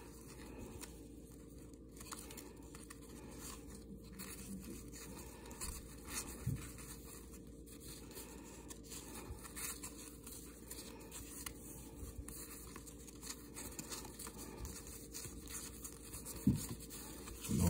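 1991 NFL Pro Line football cards being shuffled and flipped through by hand: card stock sliding and rustling against card, with light ticks as each card is moved. A couple of dull knocks near the end.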